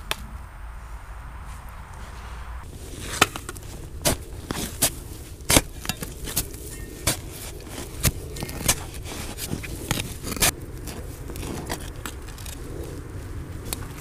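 A small shovel digging in sandy soil. From about three seconds in, the blade scrapes and strikes the earth with irregular sharp clicks and knocks, one or two a second.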